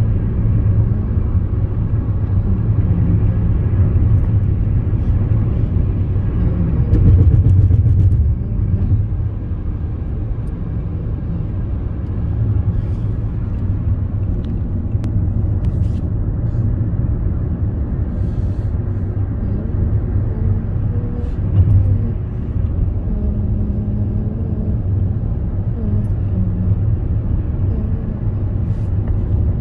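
Steady low engine and tyre rumble of a car driving at road speed, heard inside the cabin, swelling briefly about seven seconds in.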